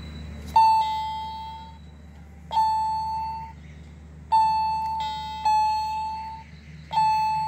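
Pink Hello Kitty toy keyboard played one key at a time by a toddler: five single electronic beeping notes of nearly the same pitch, each about a second long and fading, spaced about one and a half seconds apart.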